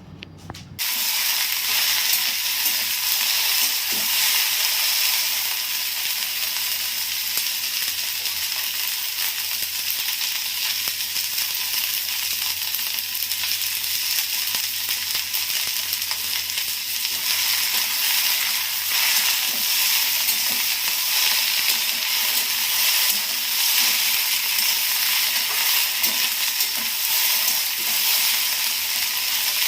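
Sliced okra sizzling as it fries in hot oil in a kadai. It starts about a second in and then holds as a steady, even hiss.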